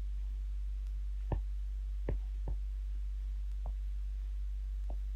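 Steady low electrical hum with a few faint, scattered clicks of a stylus tapping on a drawing tablet as digits are handwritten.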